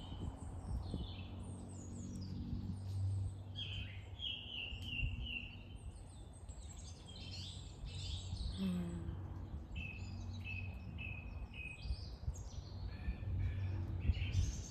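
Woodland birds singing: scattered high chirps and calls, with a repeated clear note sung in runs of four or five, over a low steady rumble.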